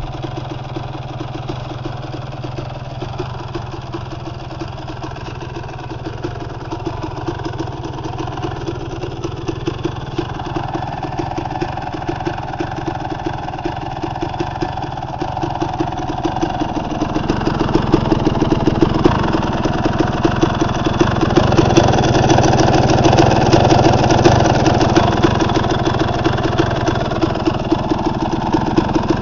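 Suzuki RM250's single-cylinder two-stroke engine idling steadily with a regular firing beat. It grows louder from a little past halfway through.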